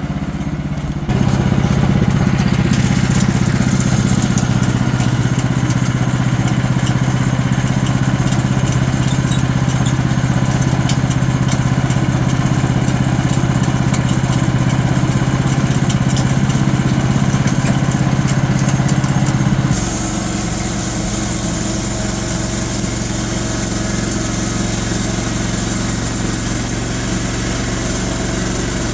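Sawmill engine running under load while the mill saws another slab off a log. About a second in it steps up to a louder, steady run; about two-thirds of the way through it drops back to a lower level and a high hiss sets in.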